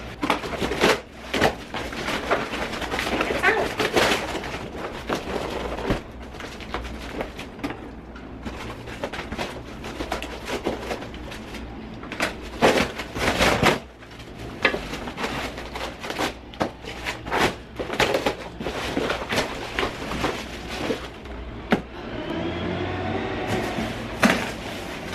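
Cardboard box being opened and unpacked: rustling and tearing cardboard, crinkling plastic wrapping and irregular knocks as parts are pulled out.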